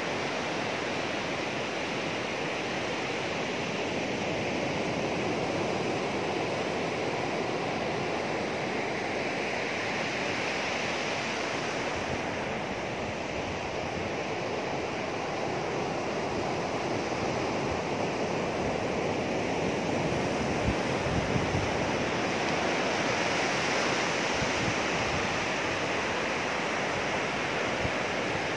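Sea surf washing steadily onto a flat sandy beach, swelling and easing slowly, with wind buffeting the microphone in a few low thumps about two-thirds of the way in.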